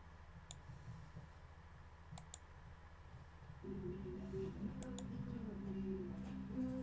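Computer mouse button clicks: one about half a second in, a quick double click just past two seconds and another near five seconds. From about three and a half seconds a louder, low wavering pitched sound comes in and carries on under the clicks.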